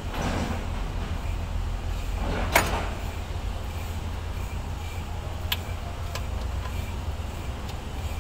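Metal clinks and clanks of hand tools and fittings being worked on a diesel injection pump, with one loud clank about two and a half seconds in and a sharper click a few seconds later, over a steady low rumble.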